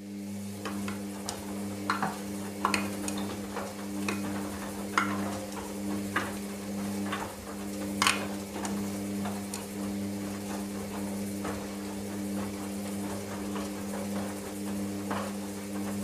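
Hoover Dynamic Next DXA 48W3 washing machine on its wash tumble: a steady drum-motor hum that comes up to speed at the start, with irregular clicks and clunks from the wet load and whatever is in it tumbling in the drum.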